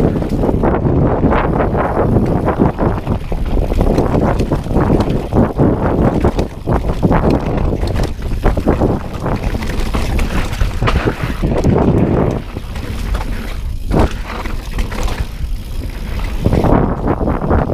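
Mountain bike ridden fast on a dirt trail: wind buffeting the camera microphone over the rumble of tyres on the ground, with frequent sharp knocks and rattles from the bike bouncing over bumps.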